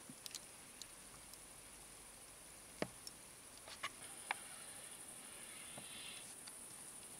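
Steady high-pitched chirring of night insects, with a few sharp clicks scattered through, the loudest a little under three seconds in.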